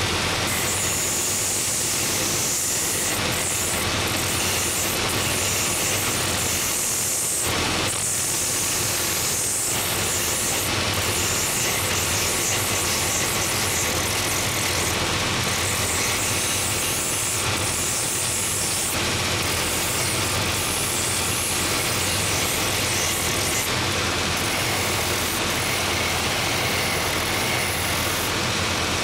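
Last-making belt sander running, its 3-inch-wide 24-grit belt grinding a wooden shoe last held against the drum: a steady motor hum under a coarse sanding hiss that swells and fades repeatedly as the last is pressed on and eased off.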